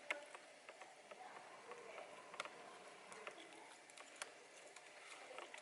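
Faint room tone with scattered light clicks and taps, cutting off abruptly at the very end.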